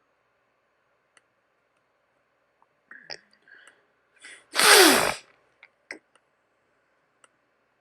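A person sneezes once, loud and sudden, about four and a half seconds in, with a falling voiced note inside it, after a brief catch of breath. Faint scattered mouse clicks come before and after.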